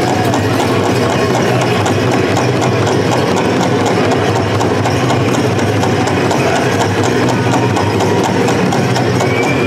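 Steady crowd hubbub with an even drumbeat of about three beats a second and faint voices above it.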